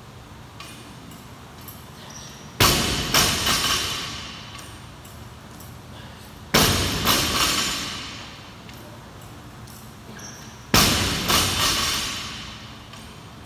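Loaded barbell dropped from the top of a power clean onto a rubber gym floor three times, about four seconds apart. Each drop lands with a loud bang followed by a few smaller bounces that die away.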